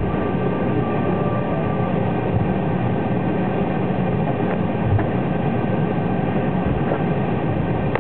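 Cabin noise inside an Embraer E190 jet taxiing: the steady rumble of its GE CF34 engines at taxi power, with a few thin steady whines above it. A couple of faint knocks come about halfway through.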